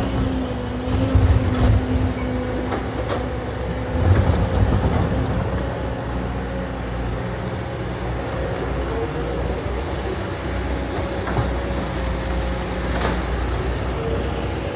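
Hydraulic excavator running as it digs, with a steady engine drone and a hum that rises in loudness about a second in and again around four seconds. A few faint knocks come through.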